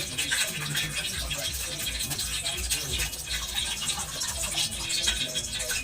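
Steady rhythmic scraping and scrubbing strokes, roughly two a second, each with a soft low thud.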